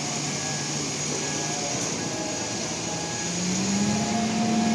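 Heavy truck's diesel engine running as the tractor unit manoeuvres its loaded trailer, the engine note rising and getting louder about three seconds in. Faint short beeps repeat in the background.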